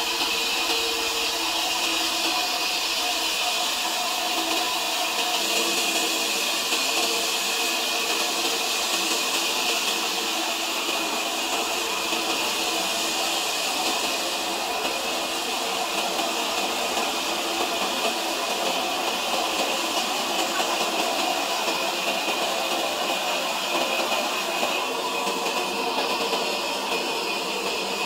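Sawmill saw running steadily: a loud, even hiss with a few steady tones underneath, holding without a break.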